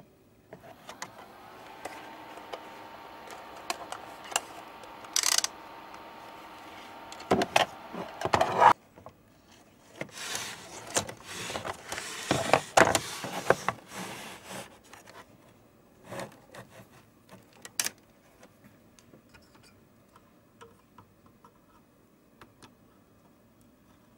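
A small motor hums steadily for about six and a half seconds, then stops. Irregular clicks, knocks and rustling follow, like parts being handled, and fade to occasional ticks after about 18 seconds.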